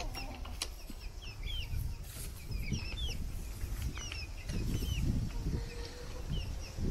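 Chickens clucking and calling, with many short, high chirps scattered throughout and a low rumble underneath.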